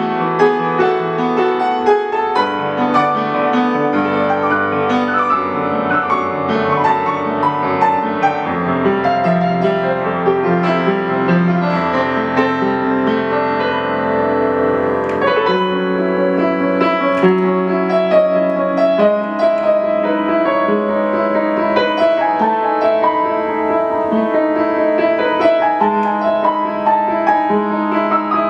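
Solo piano playing a slow, flowing new-age piece: sustained bass notes under rippling melody and chord notes, with the bass and harmony shifting about halfway through.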